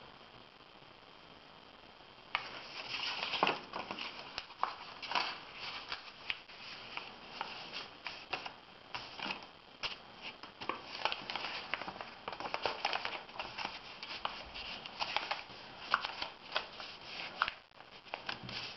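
A sheet of white paper being folded by hand into a paper plane, rustling and crackling as it is creased and smoothed flat on a tabletop, with many short sharp crinkles starting about two seconds in.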